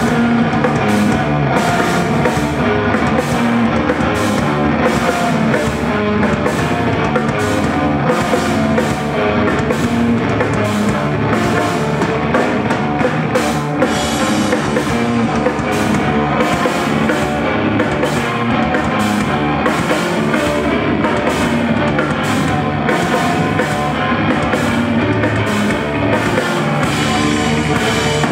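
Live instrumental rock band playing loudly: a drum kit keeps a driving beat under electric bass, with a clarinet carrying a melody line that bends in pitch.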